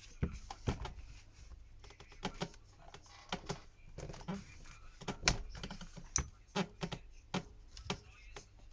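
Irregular sharp clicks and taps of a small screwdriver and metal tools against a smartphone's frame and screws, with a low steady hum underneath.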